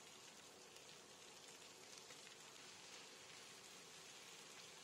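Faint, steady sizzle of bacon, garlic and zucchini noodles frying in a hot pan.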